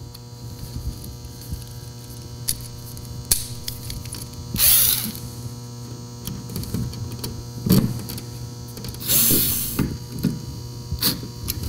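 A screwdriver tightening the mounting screws of an electrical outlet box set in drywall: small clicks and two short scraping rasps, about five and nine seconds in, as the box is drawn snug against the wall. A steady electrical hum runs underneath.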